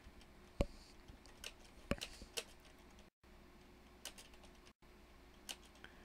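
Faint, irregular clicking of computer keys and mouse buttons, a handful of sharp clicks spread unevenly over several seconds, during a web search.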